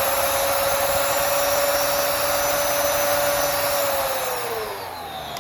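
Mechanical siren sounding a steady high tone over a broad hiss, then winding down as it is shut off at the end of the test: from about four seconds in its pitch slides down and its volume falls.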